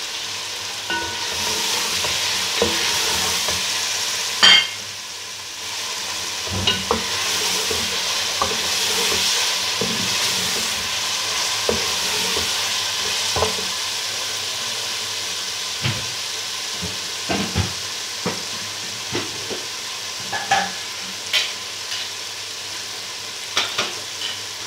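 Mutton pieces sizzling in hot oil and tomato-onion masala in a metal pot as they are stirred and fried. A spatula scrapes and knocks against the pot, with a sharp knock about four and a half seconds in. The sizzle is strongest in the first half and eases later.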